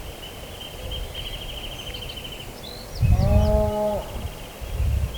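A cow moos once about three seconds in, a single drawn-out call lasting about a second.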